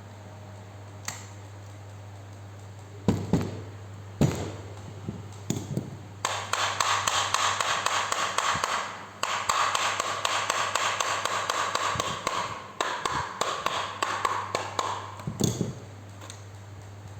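A few sharp knocks, then about nine seconds of rapid, dense tapping on the parts of a rotary hammer being worked on with hand tools, over a steady low hum.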